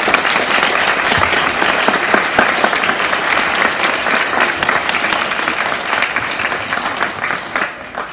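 Audience applauding: dense, steady clapping that dies away near the end.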